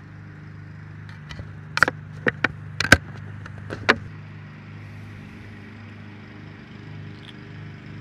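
Lawn mower engine running steadily as a low drone, with a few sharp clicks and knocks about two to four seconds in.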